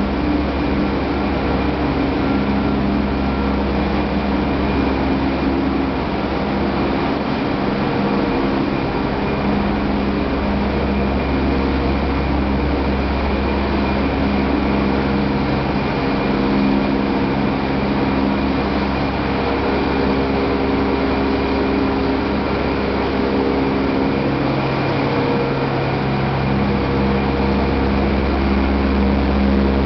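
Corn wet-milling plant machinery running: a steady mechanical hum with several constant tones over a broad hiss.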